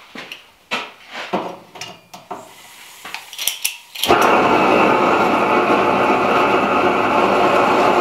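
A long-handled propane torch being lit to preheat a cast anvil for weld repair: a few separate clicks and knocks, then about four seconds in the flame catches with a sudden start and runs on as a loud, steady rushing roar.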